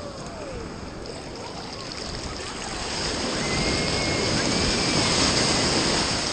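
Shallow surf rushing and foaming around a wader's legs as a wave comes in and breaks, the wash growing louder from about halfway through and peaking near the end.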